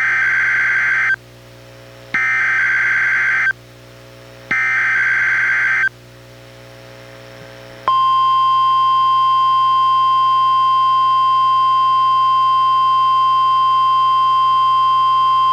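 NOAA Weather Radio test alert played through a weather radio receiver: three SAME digital header bursts, each a harsh warbling data screech about a second long, sent one after another. About 8 seconds in, the steady 1050 Hz warning alarm tone starts and holds. This is the test of the radio's warning alarm.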